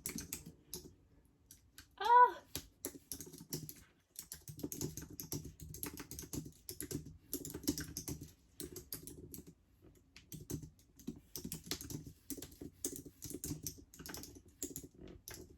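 Fast typing on a Mac computer keyboard, keys struck with long curved gel nails, in quick runs of clicks broken by short pauses. About two seconds in, a brief pitched vocal noise is the loudest sound.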